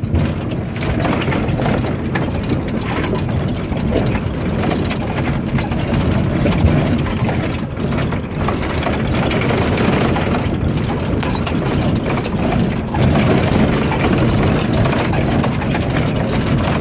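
Suzuki Katana's small four-cylinder engine running as it drives over a rough, rutted dirt track, heard from inside the cab. The body and suspension rattle and knock irregularly over the bumps.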